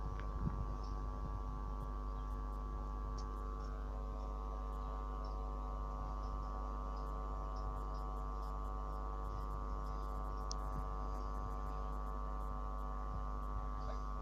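Level crossing audible warning sounding as a steady multi-tone electronic hum while the barriers are down, with one upper tone dropping out about four seconds in.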